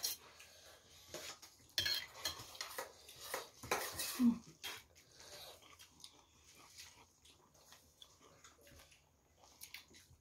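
Eating at the table: light clinks and scrapes on plates as food is picked up and handled by hand, bunched in the first half, then only faint scattered ticks.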